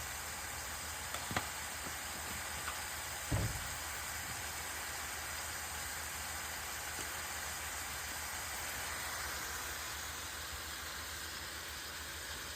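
Carne picada beef with peppers and onions sizzling steadily in a frying pan, with a couple of light clicks and one dull knock about three seconds in.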